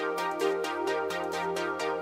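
Electronic dance music with a steady, fast beat and sustained synth chords.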